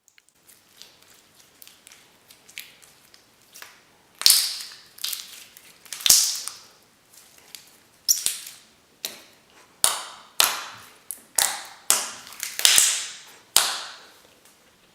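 Thick clear slime being squeezed and poked by hand: faint crackling at first, then from about four seconds in a run of loud, sharp air-pocket pops, about one or two a second.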